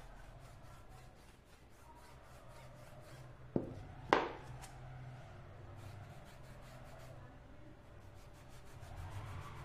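Damp cloth rubbing a RAM module in quick repeated strokes, with two sharp clicks a little under halfway through as a module is handled on the table.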